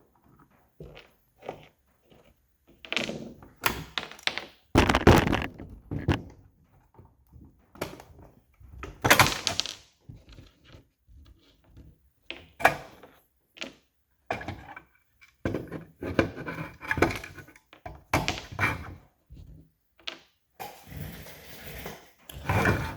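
Plastic housing of a Milwaukee M18 jobsite fan being handled and pulled apart: irregular knocks, clacks and scrapes of plastic parts, some loud, with short pauses between them.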